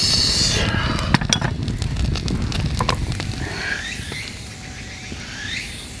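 Wood campfire crackling with sharp pops under fish grilling on a wire grate. After about three seconds it dies down to a quieter background with a few short chirping calls.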